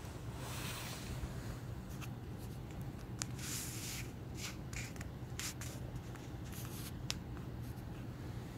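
Quiet indoor room tone: a steady low hum, with a few short bursts of soft rustling and scattered light clicks.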